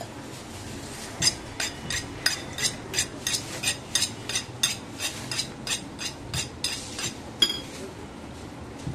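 A steel knife being sharpened by hand: quick metal-on-metal strokes, each a sharp ringing clink, about three a second, starting about a second in and stopping a little before the end.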